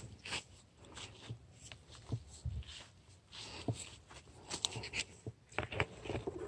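Bean plants' leaves and stems rustling as they are handled for picking, in irregular rustles and small crackles.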